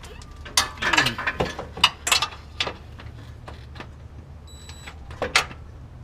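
Irregular metallic clinks, knocks and scraping from tools and exhaust parts being worked loose during a catalytic converter removal, busiest in the first few seconds, with a few more clicks near the end, over a steady low hum.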